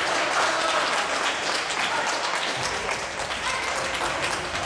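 Spectators clapping and cheering, a dense patter of hand claps with voices calling out over it.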